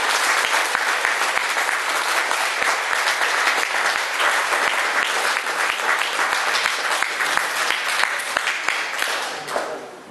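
An audience applauding: a dense, steady round of clapping that dies away near the end.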